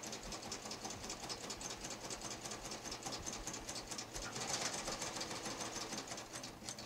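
Baby Lock serger (overlock machine) running steadily, stitching piping cord between two layers of fabric. It makes a rapid, even stitching rhythm over a faint motor hum.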